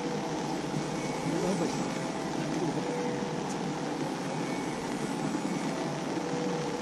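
Steady outdoor background noise with faint, indistinct voices.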